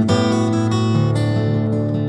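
Background music led by acoustic guitar, strummed and plucked notes.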